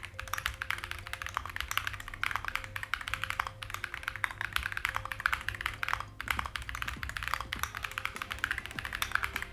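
Typing at speed on an Akko ACR Pro Alice Plus mechanical keyboard, with Akko Crystal linear switches in a gasket-mounted acrylic case: a dense, continuous run of key clacks, broken by short pauses about three and a half and six seconds in.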